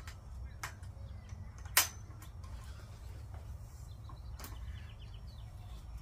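Hard plastic parts of a Step2 play structure being pressed and snapped together: a few sharp clicks, the loudest about two seconds in and another about four and a half seconds in, over a steady low background rumble.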